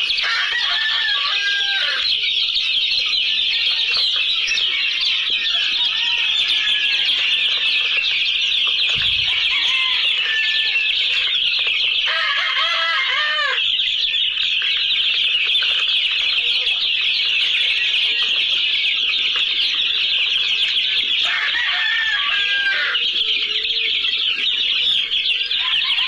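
A flock of young chickens peeping continuously in a dense, high-pitched chorus, with a few lower, arched calls standing out now and then.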